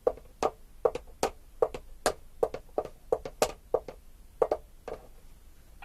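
A steady series of sharp knocks performed as a sound effect, about two and a half a second, some fourteen in all.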